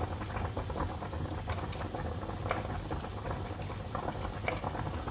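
A pot of pasta water boiling on the stove: a steady bubbling with many small crackles over a low hum.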